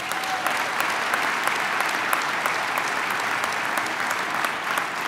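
An audience applauding steadily: a dense patter of many hands clapping at once.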